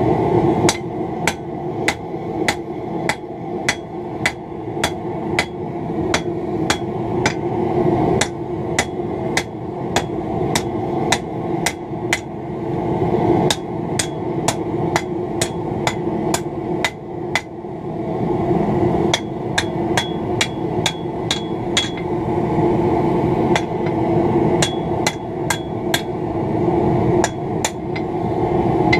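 Hand hammer striking red-hot steel from an old scythe blade on an anvil, about two blows a second in runs with short pauses, straightening the piece. Some blows ring sharply off the anvil, over a steady low hum.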